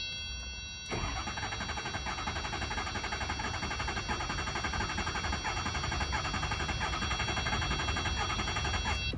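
Ford 6.0 Power Stroke V8 diesel turning over on the starter motor without firing. A steady high electronic tone sounds until the cranking begins about a second in. The cranking rhythm has a dip in it, which the mechanic takes as a sign of lost compression in a cylinder.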